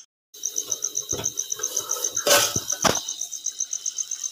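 A cricket chirping in a fast, steady run of evenly spaced high chirps, with a few short knocks, the loudest about two seconds in.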